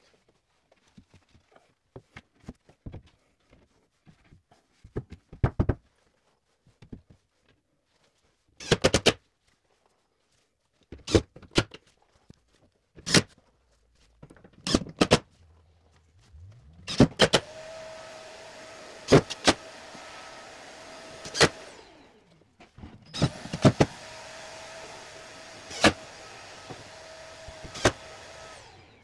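Scattered clicks and knocks of handling, then a cordless drill motor running steadily in two long runs of about four and six seconds, with a few sharp knocks over it.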